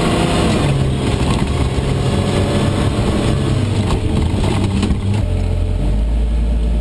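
Steyr-Puch Pinzgauer's engine heard from inside the cab, running under load with changing revs over a rough dirt track, with a couple of knocks and rattles. About five seconds in it settles to a steady low idle as the vehicle stops.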